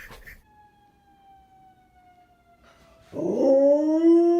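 A faint, slowly falling whine, then about three seconds in a dog starts a loud, long howl that rises briefly in pitch and then holds steady, on the owner's 'go' cue.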